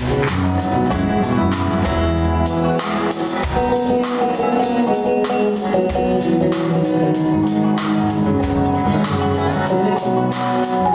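A live band playing an instrumental passage: banjo, acoustic and electric guitars, bass, keyboards and a drum kit, over a steady drum beat.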